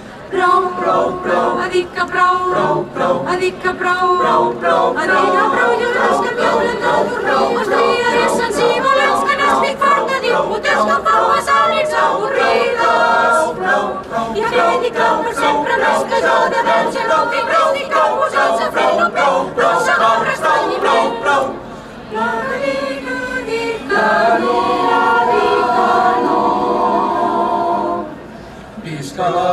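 A crowd of demonstrators singing together in unison without instruments, with two short breaks in the singing late on.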